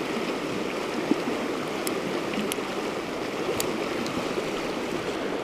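Mountain creek running fast over rocks: a steady rush of water, with a few faint ticks.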